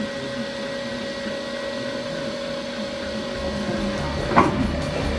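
Steady machine hum with a constant whine. A low rumble joins about three and a half seconds in, and a single sharp knock comes near the end.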